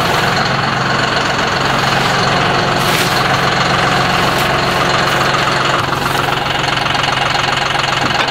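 John Deere loader tractor's diesel engine idling steadily.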